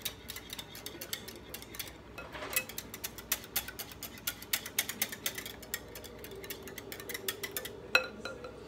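A wire whisk beating egg and milk in a glass bowl, its tines clicking rapidly against the glass, with one louder clink near the end.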